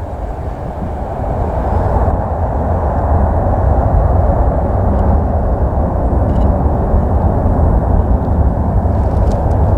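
Jet aircraft engine noise, a steady low rumble that grows louder over the first two seconds and then holds, as a plane passes close by on landing.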